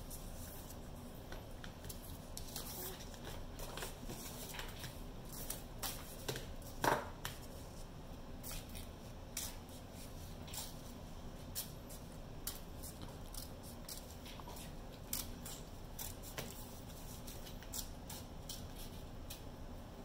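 Scissors snipping paper to cut out paper hearts: a run of short, crisp snips at irregular intervals, with one louder click about seven seconds in.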